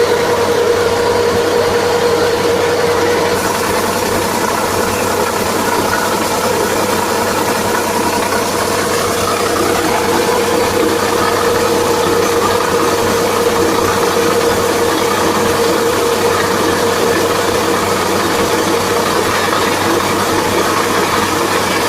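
Kubota rice combine harvester running steadily: engine and machinery together, with a steady whining hum.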